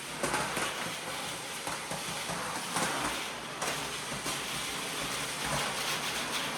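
Vacuum cleaner running steadily with an even, airy rush.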